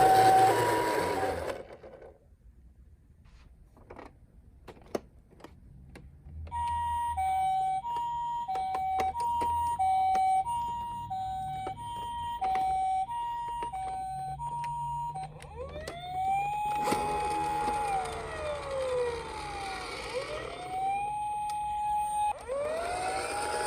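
Toy ambulance minicar's electronic two-tone siren, the Japanese ambulance "pee-po" alternating between a high and a low note. It breaks off for a few seconds of scattered clicks, sounds again for about eight seconds, and then gives way to a wailing siren that rises, holds and falls, over a rushing noise.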